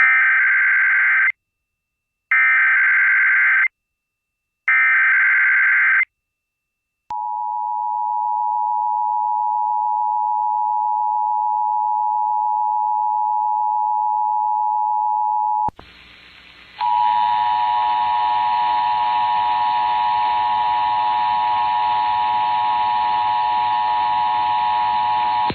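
Emergency Alert System test broadcast on FM radio: three short bursts of warbling digital data tones, the SAME header, each lasting about a second and a half. Then the two-tone EAS attention signal sounds steadily for about eight seconds. About sixteen seconds in it cuts off, and after a brief dip a rougher steady tone with many overtones takes over.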